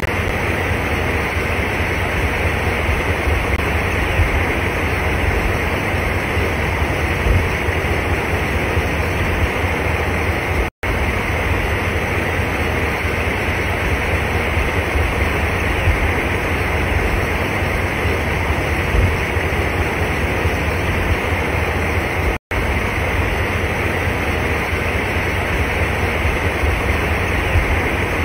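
Fast-flowing floodwater rushing over a road in a steady, loud rush with a deep low rumble. The sound cuts out for an instant twice.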